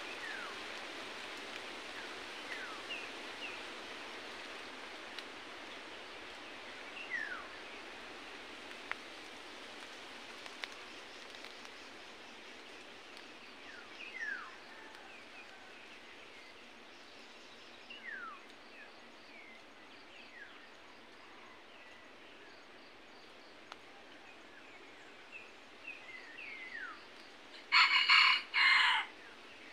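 A rooster crows once near the end, a short shrill crow broken into two parts. Under it runs a steady hiss of forest ambience, with short falling whistled bird calls every few seconds.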